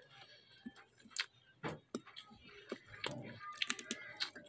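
Light, irregular clicks and taps as food is handled over a plate, with a quick cluster of them near the end.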